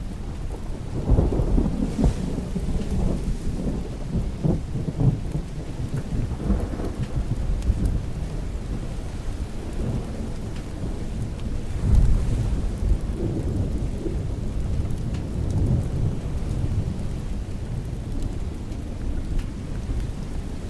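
Steady rain with thunder rumbling low and long, swelling loudest about a second in and again around twelve seconds.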